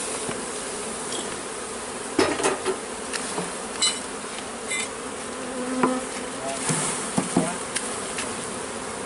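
Many honeybees buzzing steadily around opened hives during a honey harvest, with scattered clicks and knocks of handling.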